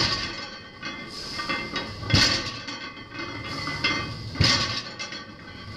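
Loaded barbell with iron plates set down on wooden lifting blocks during block-pull deadlift reps: a clank and thud about every two seconds, three times.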